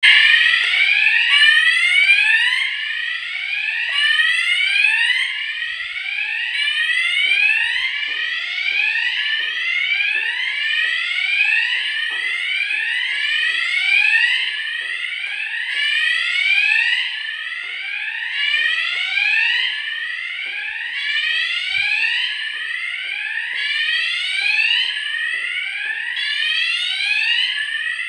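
Electronic fire alarm sounder going off continuously with a quickly repeating rising sweep tone, each sweep climbing in pitch and starting again at the bottom.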